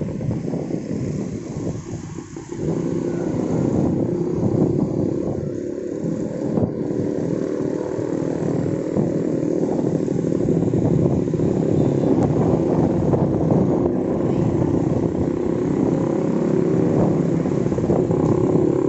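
Motor scooter running at riding speed, heard from the rider's seat. It eases off briefly about two seconds in, then picks up again and holds steady.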